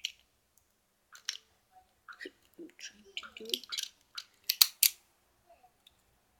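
Plastic and metal parts of a Storm Spriggan Beyblade Burst top clicking and rattling as they are twisted in the hands. There are scattered small clicks, with two sharper clicks in quick succession a little past the middle.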